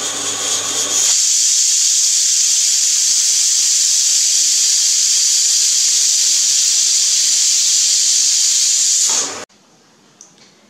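Pressure cooker whistle blowing: steam escaping under the weighted valve in a loud, steady hiss as the cooker reaches full pressure. It starts about a second in and cuts off abruptly near the end.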